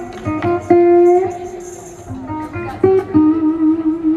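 Guitar playing a short run of single plucked notes, then holding one note that wavers in pitch from about three seconds in.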